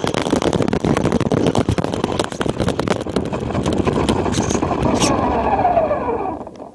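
Onboard sound of a Traxxas Rustler RC truck with a brushless motor driving over an icy, snow-covered road: constant rattling and tyre noise, then the motor's whine falling in pitch as the truck slows to a stop near the end.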